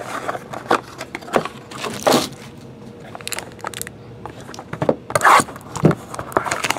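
Hands handling small cardboard card boxes on a tabletop: irregular scrapes, taps and short crinkles as the boxes are opened, pulled out and set down.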